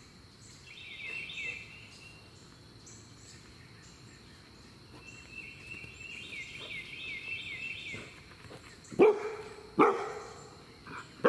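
Bernedoodle puppy barking: two loud, sharp barks about a second apart near the end, and another right at the end. High, quick repeated chirping notes sound in the background earlier.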